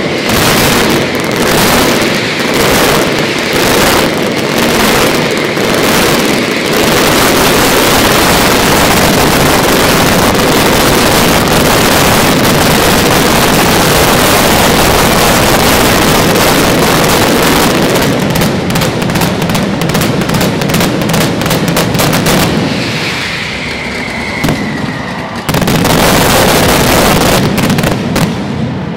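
Mascletà firecrackers exploding: a steady run of loud bangs a little over one a second, merging into an unbroken barrage of detonations, then rapid separate cracks. It eases off for a few seconds near the end before a final burst.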